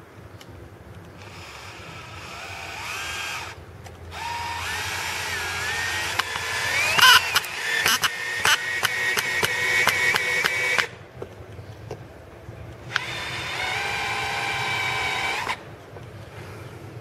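Bosch cordless drill/driver's motor whining in three bursts as it drives a Phillips screw into wood, rising in pitch as it spins up each time. The long middle run carries a rapid string of sharp clicks through its second half.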